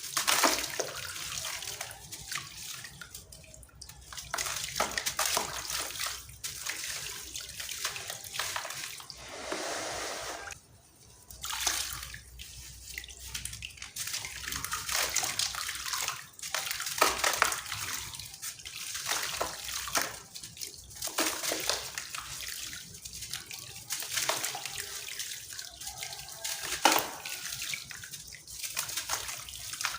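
Crunchy dried sand-cement chunks being crumbled by hand: gritty crunching and crackling in uneven waves, with a brief lull about ten seconds in.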